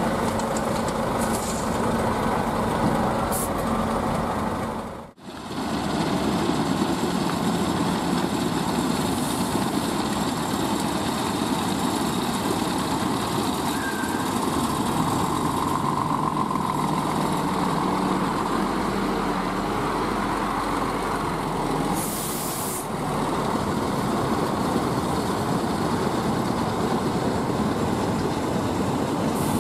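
Scania R440 tipper truck's 13-litre six-cylinder diesel running as the loaded truck drives over the quarry yard, with a short air-brake hiss a little past two-thirds of the way through. Before a cut about five seconds in, the loader's engine is heard running as its bucket tips material into the trailer.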